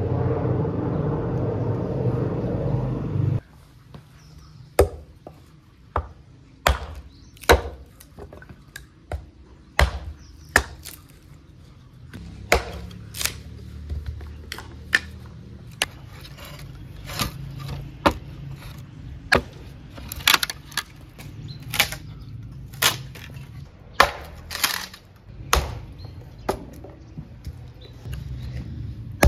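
Hatchet chopping and splitting firewood into kindling: sharp wooden chops at irregular intervals, about one a second. Before the chopping starts, a steady low drone cuts off abruptly about three seconds in.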